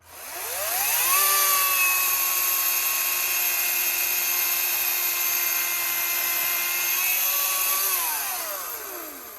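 Ryobi 40V HP brushless 18-inch cordless chainsaw's electric motor and chain spinning up with a rising whine, running steadily at full speed for about seven seconds, then winding down near the end.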